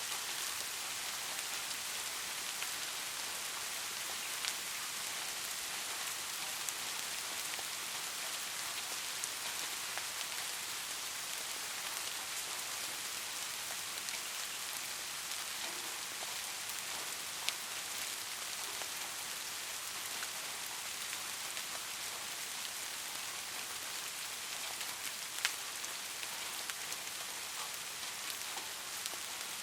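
Steady rain falling, an even hiss with occasional sharper single drop hits standing out, the clearest about four, seventeen and twenty-five seconds in.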